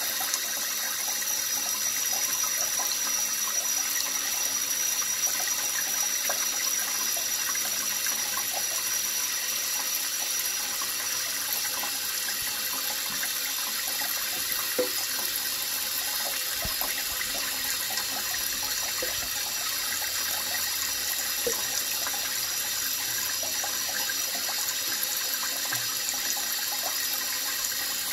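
Tap running steadily into shallow water in a stainless steel sink, with the occasional small splash.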